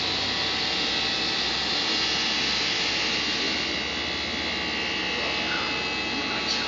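Steady fan noise of a UV flatbed printer running with its perforated vacuum bed, an even rushing sound with a faint hum and no breaks.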